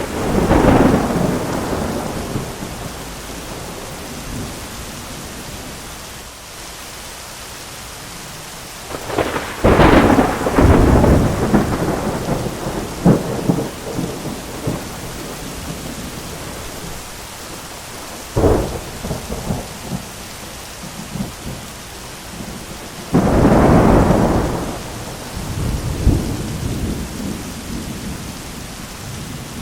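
Thunderstorm: steady heavy rain with four loud thunder crashes, one right at the start, one about a third of the way in, a sharp crack a little past halfway and another near the end, each rolling on in rumbles before fading back under the rain.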